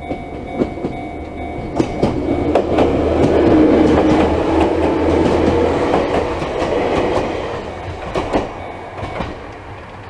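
Chichibu Railway 7800-series local train passing over a level crossing, its wheels clacking over the rail joints, loudest about four seconds in and dying away toward the end. At the start the crossing's electronic warning bell is still ringing its steady tone, and it stops about two seconds in.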